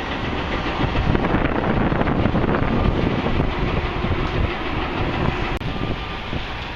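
Strong gusty wind buffeting the camera microphone: a loud, irregular rumble.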